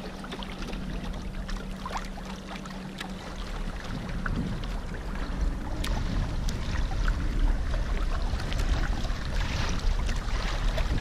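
Water rushing and splashing along the hull of a Hobie trimaran sailing kayak, with wind noise on the microphone and scattered small splashes. It grows louder from about four seconds in.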